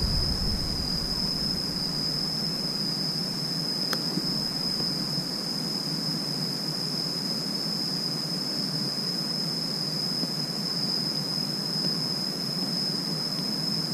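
Insects droning: one steady, high-pitched, unbroken whine over a low background hiss.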